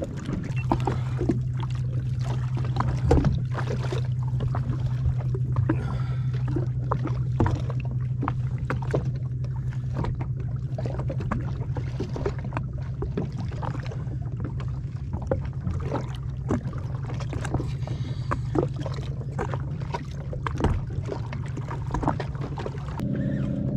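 Personal watercraft engine idling with a steady low hum, water slapping irregularly against the hull. A second, higher-pitched engine note joins in near the end.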